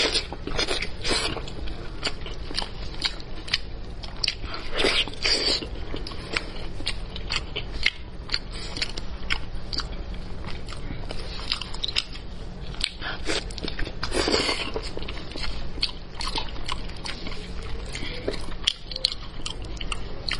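Close-miked eating of spicy braised pork elbow: wet biting, chewing and lip-smacking with many sharp sticky mouth clicks, and a few louder, longer bites.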